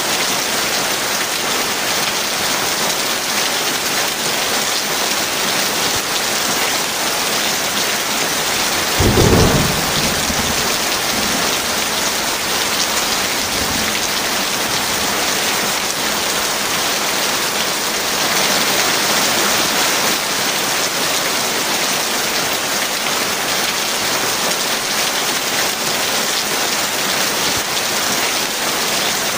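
Heavy rain pouring steadily, with one thunderclap about nine seconds in that rumbles away over the next few seconds.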